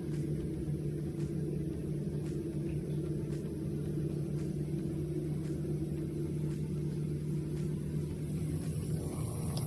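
Frigidaire dishwasher running a test wash cycle, its pump motor giving a steady low hum with faint ticks about once a second; a hiss joins near the end.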